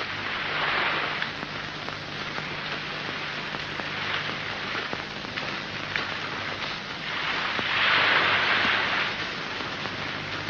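Sea surf washing onto a sandy beach: a steady hiss that swells about a second in and again near eight seconds, over a faint low hum.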